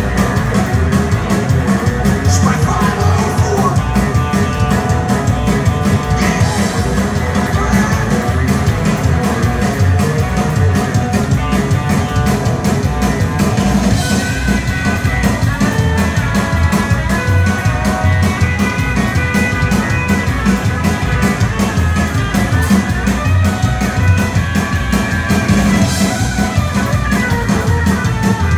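Live rockabilly band playing an instrumental stretch: an orange hollow-body electric guitar plays lead lines over upright bass and drums. Cymbal crashes come every few seconds.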